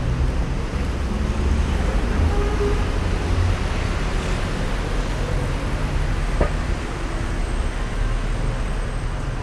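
City road traffic running steadily, cars and buses passing, with one vehicle going by closer around four seconds in. A single short click a little after six seconds.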